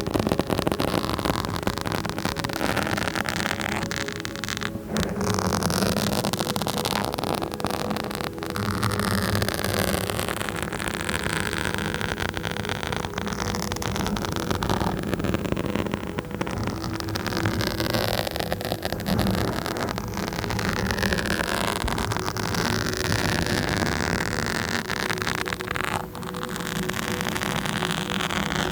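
Close scratching directly on a microphone: a dense, continuous scratchy noise that keeps shifting, with a few brief breaks, the clearest about five seconds in and near the end.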